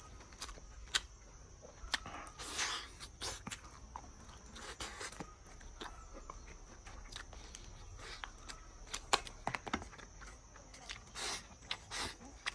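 Close-up wet chewing and lip-smacking of a person eating braised pork rib meat: irregular mouth clicks with a few short slurps, the loudest about two and a half seconds in and near the end.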